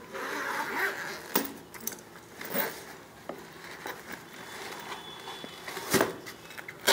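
A nylon backpack and its cardboard box being handled: fabric and cardboard rustling, with several sharp knocks, the loudest near the end.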